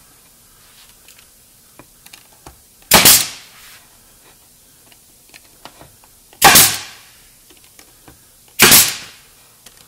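Pneumatic nail gun firing three times, each a sharp shot with a short fading hiss: the first about three seconds in, the second a few seconds later and the third near the end. It is driving nails to fix a plywood French cleat into a mantel box.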